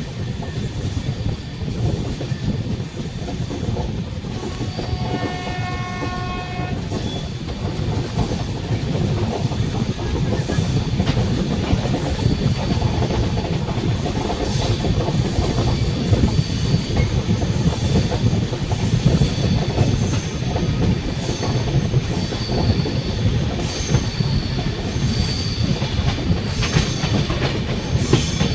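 A passenger train running with a steady rumble and clickety-clack of wheels over rail joints. A locomotive horn sounds once for about two seconds, about five seconds in, and faint high wheel squeal comes and goes in the second half.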